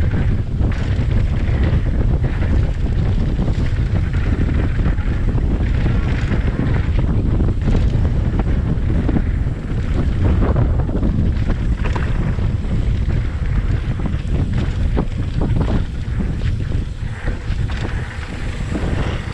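Wind buffeting the camera microphone over the rumble of a mountain bike's tyres rolling fast down a dirt trail, with many short knocks and rattles from the bike over bumps.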